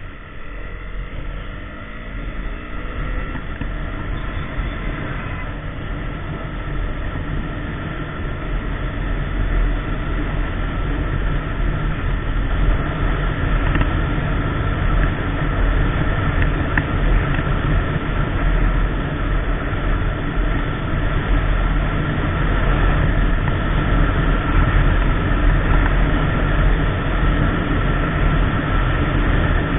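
KTM Duke 390's single-cylinder engine under hard acceleration, its pitch climbing in the first few seconds, mixed with heavy wind rush on the microphone that grows steadily louder as speed builds toward about 130 km/h.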